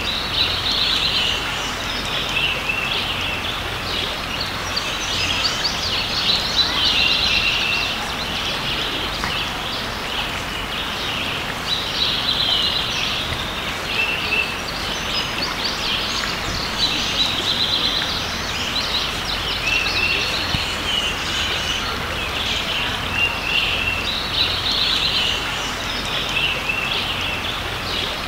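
Creek water running steadily, with songbirds singing short chirping phrases every few seconds over it.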